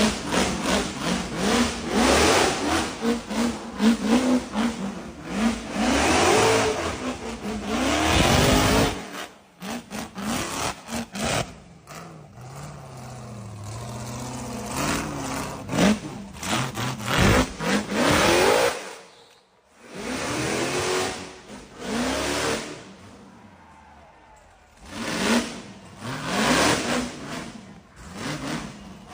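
Rock bouncer buggy engine revving hard in repeated bursts, its pitch rising and falling, with a few short lulls where it drops back near idle.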